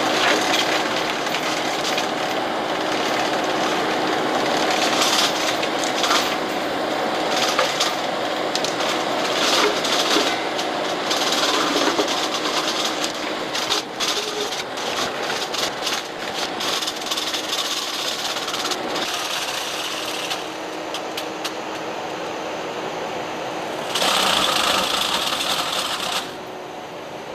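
Skid steer running a Brush Hound FH Series flail mower: the engine and the mower's spinning flail drum make a steady drone, with irregular crackling and splintering surges as the flails mulch woody brush. The sound shifts abruptly a few times.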